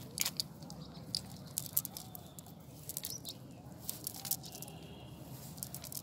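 Scattered light clicks and crackles from a cast net being handled and shifted over gravelly ground, over a steady low background.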